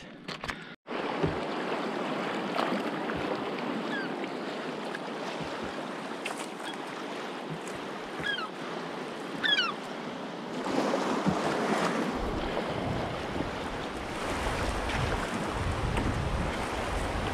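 Fast river water rushing and churning around a canoe running a wave train of whitewater, a steady loud wash. A few short falling chirps sound about halfway through, and wind rumbles on the microphone over the last few seconds.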